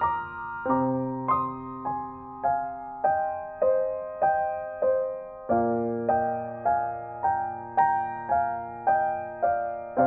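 Gentle background piano music: a slow melody of notes struck about every 0.6 seconds, each fading before the next.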